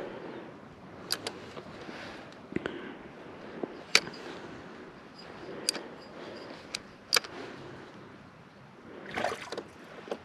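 Water lapping against a kayak hull, with a scatter of sharp clicks and knocks from handling a spinning rod and reel, the loudest about four seconds in. A brief rustle near the end.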